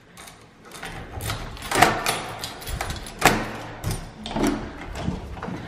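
A key working a door lock with its lever handle: a series of sharp metallic clicks and knocks as the lock is turned and the door unlatched.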